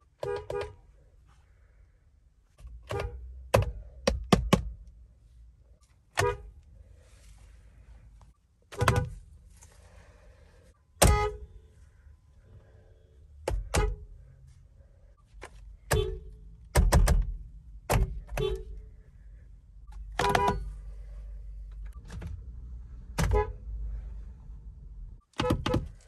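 Car horns of several different cars, among them a Toyota, a Honda and a Kia, sounded from inside the cabin by pressing the steering-wheel pad: a series of short honks, singly and in quick clusters, with a low hum between them.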